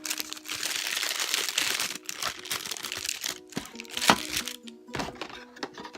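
Plastic packaging crinkling and rustling, densest over the first two seconds, then scattered snaps and clicks, with a sharp click about four seconds in. Background music plays throughout.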